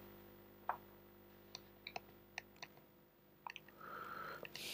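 Quiet room tone with a low steady hum and about half a dozen short, faint clicks scattered through it.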